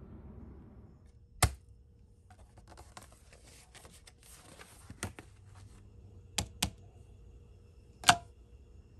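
Glossy paper pages of a paint-colour brochure rustling and crackling as they are turned and handled, close up. A sharp tap comes about a second and a half in, a few lighter clicks follow, and another loud tap comes near the end.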